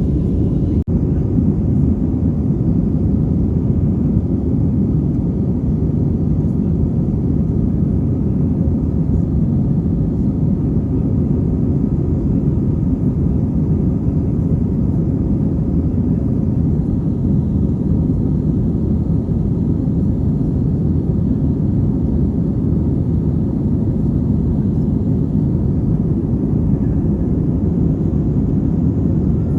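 Steady low rumble of an airliner's cabin noise in flight: jet engines and rushing air heard from inside the cabin. A brief click just under a second in.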